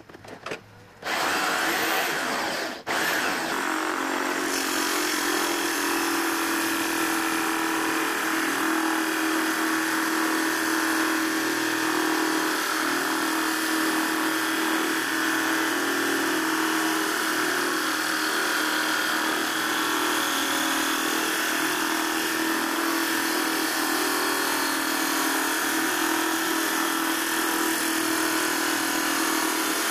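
Homemade drum sander switched on about a second in, then running steadily with a steady hum while its sandpaper-covered drum sands a wooden board. A few light knocks come just before it starts.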